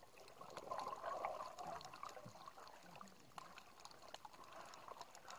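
Underwater sound on a shallow coral reef: faint scattered crackling clicks over a water hiss, with a swell of rushing water noise about a second in.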